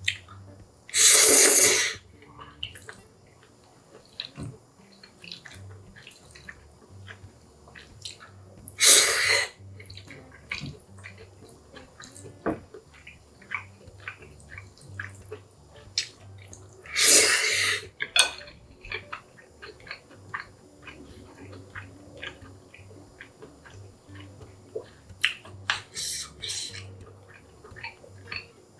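Chapagetti noodles slurped loudly three times, each slurp lasting about a second, with two shorter slurps near the end. Between them come wet chewing and light clicks of wooden chopsticks.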